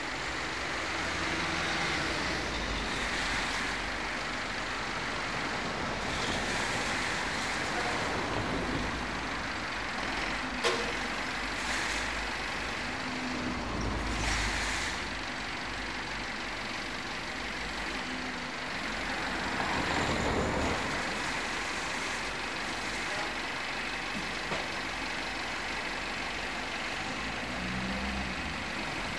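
Truck engine running steadily to power a truck-mounted loader crane as it lifts a load, over street traffic noise. There is one sharp knock about ten seconds in.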